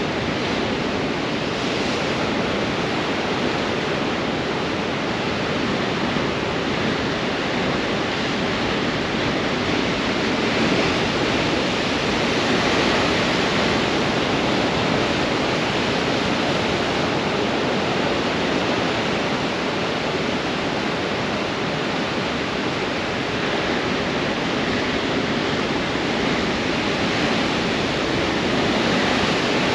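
Heavy ocean surf breaking on rocks in strong wind: a steady, dense rush of churning white water with no single crash standing out, swelling a little a few times.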